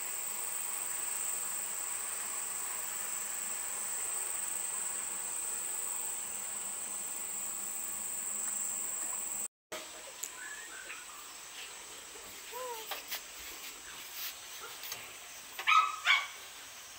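Steady, high-pitched insect chorus. After a cut about nine and a half seconds in, the buzz drops away, leaving scattered short chirps and a couple of louder sounds near the end.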